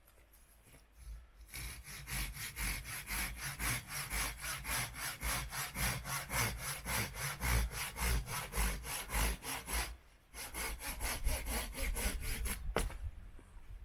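Hand saw cutting through wood in quick, even back-and-forth strokes, about four a second. It pauses briefly about ten seconds in, then carries on, with one sharp click near the end.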